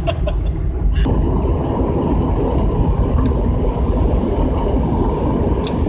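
Steady engine and road noise inside the cabin of a moving vehicle, growing a little fuller about a second in.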